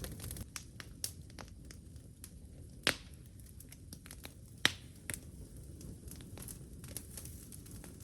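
Wood campfire crackling, with scattered small pops and two louder, sharper pops about three and four and a half seconds in.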